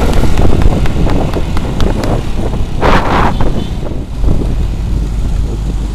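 Riding-along sound of a motorcycle: wind rushing over the rider's camera microphone with engine and road rumble underneath. A short, louder rushing burst comes about three seconds in.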